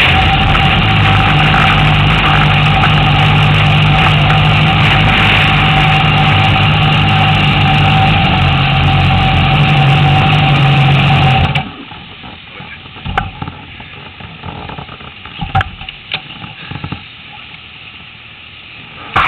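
Honda CBR1000RR inline-four engine running steadily, heard through the bike-mounted camera, until it stops about eleven and a half seconds in. After that only faint scattered clicks and knocks remain.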